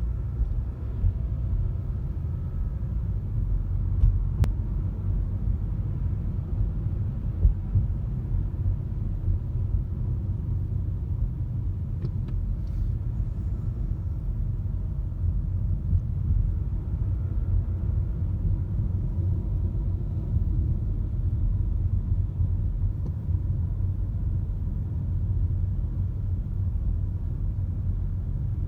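Steady low rumble of a car travelling on the highway: road and engine noise.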